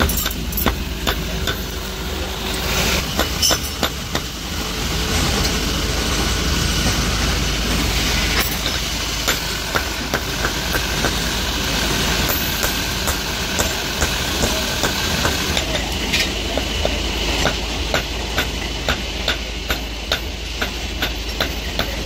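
Hand hammer striking red-hot steel on an anvil: a run of sharp metallic clanks, coming more steadily in the last few seconds, over a steady low mechanical hum.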